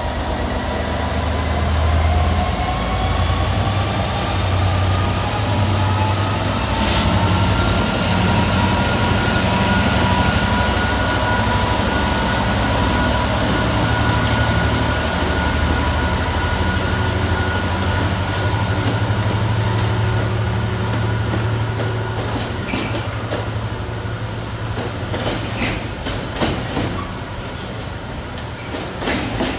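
Freightliner Class 66 diesel locomotive pulling a container train away, its two-stroke EMD V12 engine running with a low drone and a whine that rises in pitch over the first several seconds as it gains speed. From about halfway on, the container wagons roll past with a run of clicks as their wheels cross rail joints.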